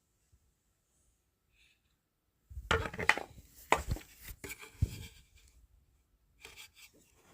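Near silence, then from about two and a half seconds in a run of sharp knocks and rubbing, as of objects being handled and set down on a hard surface, fading to faint rustles near the end.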